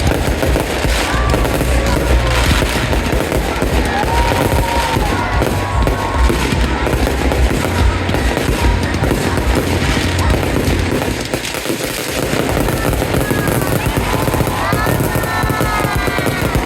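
A rapid, continuous barrage of fireworks: dense crackling and popping over a deep rumble of aerial shell bursts, easing briefly about two-thirds of the way through. High tones rise and fall over it near the end.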